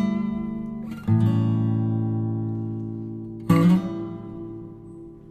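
Background music of acoustic guitar: strummed chords, one about a second in and another about three and a half seconds in, each left ringing and fading away.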